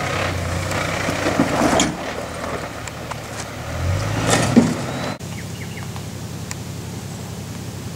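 Toyota Land Cruiser 80 series engine running at low revs as the truck crawls up a rocky rut, with two louder bursts of noise from the climb. About five seconds in it cuts off suddenly to quieter bush background with small bird or insect chirps.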